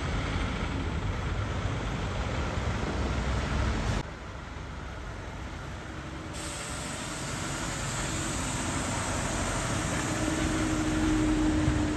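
Semi-truck's diesel engine running as the tractor-trailer pulls out and drives slowly past, a steady rumble with hiss. The sound drops suddenly about four seconds in, then builds again with a low, steady drone as the truck comes close near the end.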